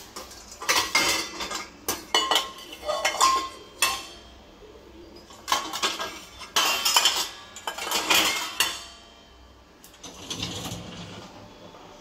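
Stainless steel pots and bowls clinking and clattering against each other and the wire racks of a loaded dishwasher as they are handled. Two spells of clatter a few seconds long, then a fainter rattle near the end.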